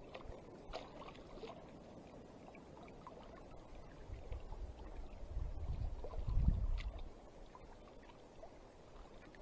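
Quiet lakeshore ambience: small ripples lapping against shore boulders, with light wind rumbling on the microphone that swells for a couple of seconds in the middle.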